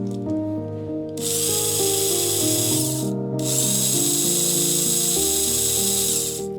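Electric drill running with a high whine in two runs, about two and three seconds long, with a brief stop between. It spins a dowel center marker in its chuck to check whether the marker's point runs true. Background music plays underneath.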